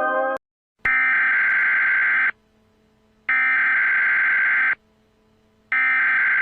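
Emergency Alert System SAME digital data tones: three identical harsh buzzing bursts, each about a second and a half long with about a second between them, following a rising tone that cuts off just after the start.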